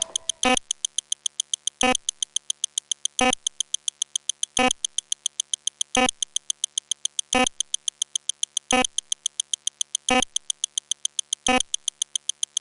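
Sped-up electronic sound effects repeating in a rapid, even stream of short blips, several a second, with a stronger tick about every second and a half.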